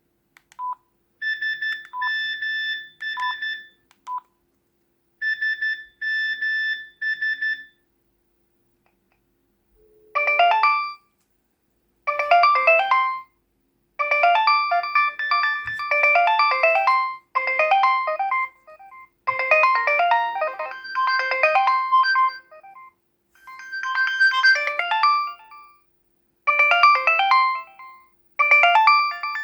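Mobile phone ringing: a few short beeps, then two spells of a quick, pulsed electronic ring. After a brief pause, a melodic electronic ringtone plays repeated phrases of many notes.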